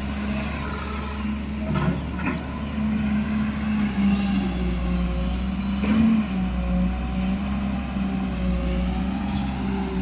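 Caterpillar E180 tracked excavator's diesel engine running steadily under digging load, its pitch wavering slightly as the boom and bucket work. A few sharp knocks come through, twice about two seconds in and once near the middle.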